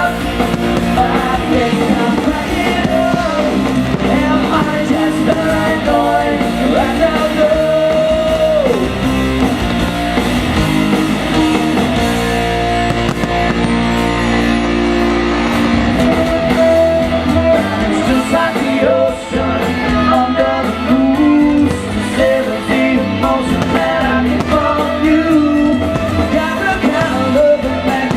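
Live rock band playing a song with a singer, electric guitar, bass and drums, loud and continuous; about halfway through the high end drops out for a few seconds under a held bass note before the full band returns.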